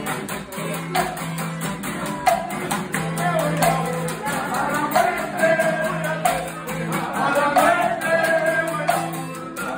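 Live band music: a strummed acoustic guitar and drums with cymbal strokes keeping a steady beat, with singing over the top.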